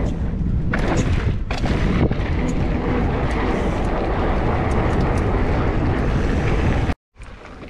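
Wind buffeting a body-mounted action camera's microphone, with tyre rumble from a mountain bike rolling fast over a sealed pump track. The sound cuts out abruptly about seven seconds in and comes back much quieter.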